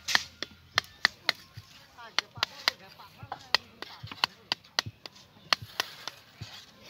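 Hammer striking a chisel to chip set concrete away from the foot of a steel rebar column cage: a quick, uneven run of sharp, slightly ringing metallic strikes, about three a second.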